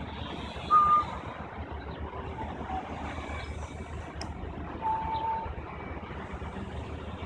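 Steady low rumble of vehicle engines, with a few short steady-pitched beeps: a loud one about a second in and a fainter, lower one about five seconds in, and a brief high click near the middle.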